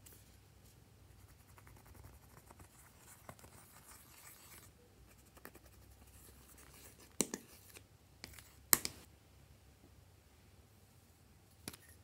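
Plastic tool scraping pressed eyeshadow out of a palette pan: faint, light scratching, broken by a few sharp clicks, the loudest about nine seconds in.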